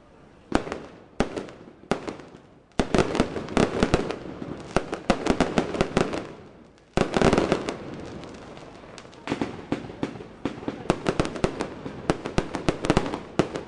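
Aerial fireworks going off: three single bangs about a second apart, then rapid volleys of bangs and crackling from bursting shells. There is a loud burst at about seven seconds and more quick-fire reports near the end.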